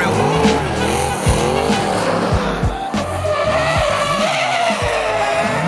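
Drift cars sliding sideways through a corner, engines revving up and down at high revs while the tyres squeal and skid.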